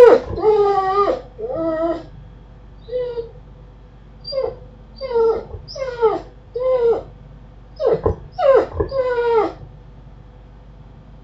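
A dog whining: about a dozen short, high whines, most sliding down in pitch, in loose groups, then stopping shortly before the end.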